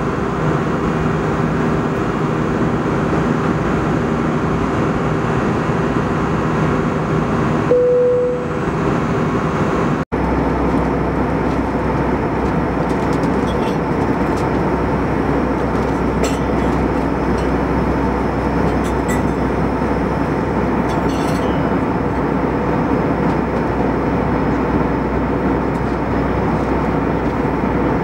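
Steady cabin noise of an Airbus A320 in cruise: the drone of the engines and the rush of air past the fuselage. About 8 s in a short single chime-like tone sounds and fades; about 10 s in the sound cuts out for an instant and comes back with a deeper low rumble.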